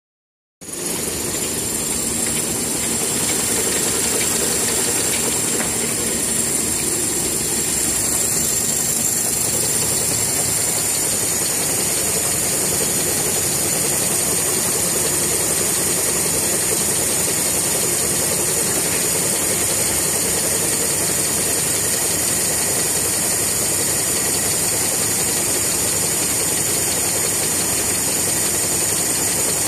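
Full-embossing toilet roll rewinding machine running at steady speed: a continuous mechanical running noise with hiss and a steady high-pitched whine.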